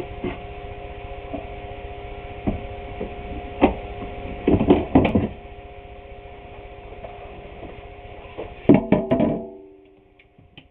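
An electric power tool's motor running with a steady hum, with sharp knocks and clatter from the work over it. It is switched off about nine and a half seconds in and winds down.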